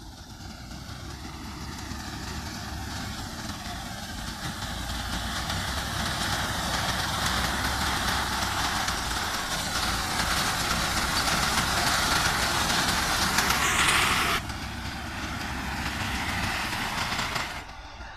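Tractor diesel engine running with a front-mounted reaper cutting through standing wheat, growing louder as it draws near. The level drops suddenly about fourteen seconds in and again near the end.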